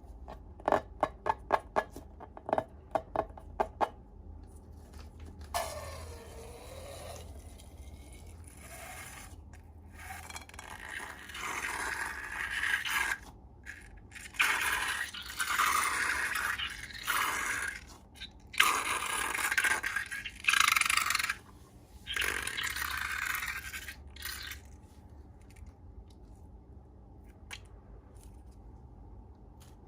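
Slime being squeezed and worked by hand: a quick run of sharp clicks and pops in the first few seconds, then repeated bursts of wet scraping and squishing.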